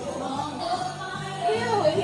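Background music with a singing voice: a song playing over steady bass notes, with the sung line gliding down and back up near the end.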